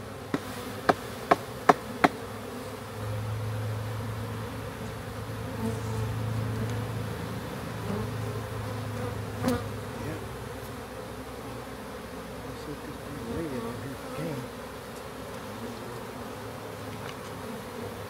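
Swarm of honey bees buzzing around an open hive box, a steady hum that swells about three seconds in. Five sharp knocks in quick succession in the first two seconds, and one more near the middle.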